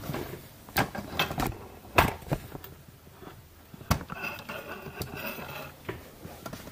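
Scattered light knocks and bumps of handling noise from a handheld camera being carried about, the sharpest about two seconds in, with a faint wavering tone for a second or so near the end.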